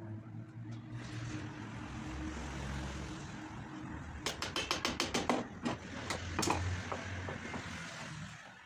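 A quick run of light wooden knocks, about eight in a second a little past the middle, then two more, as cut pieces of a wooden board are handled on a workbench. A low rumble runs underneath.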